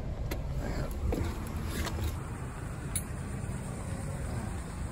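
A steady low car rumble with a few light clicks, then a sharper knock about three seconds in, as a wire cat trap is lifted out of the car and set down.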